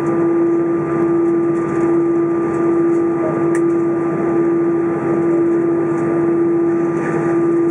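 Airbus A320 cabin noise while taxiing, heard from a window seat over the wing: the jet engines at idle and the air-conditioning make a steady hum, with a strong steady drone and a fainter higher whine over it.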